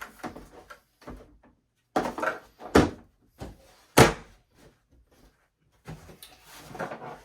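Husqvarna hard plastic chainsaw carrying case being shut: a series of sharp plastic knocks and thunks as the lid and latches are closed, the loudest about four seconds in.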